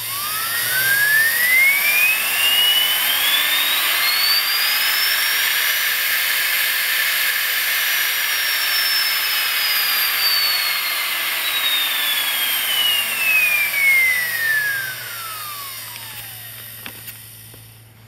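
A 48 V DC universal motor run through a variac, spinning up and back down: a loud whine rises steeply in pitch over about six seconds as it reaches around 30,000 rpm, holds near the top, then falls steadily as the voltage is wound back down and grows quieter near the end.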